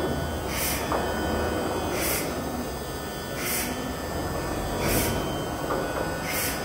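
Thermwood gantry CNC router running as its table travels back and its head moves: a steady hum, with a short hiss repeating about every second and a half.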